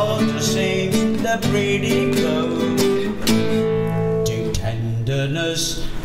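Music: acoustic guitar strummed, playing sustained chords that change every second or so.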